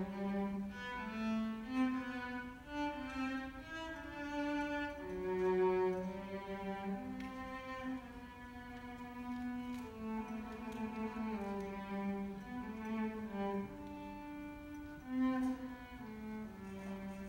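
Cello playing a melody of held, bowed notes that move from pitch to pitch.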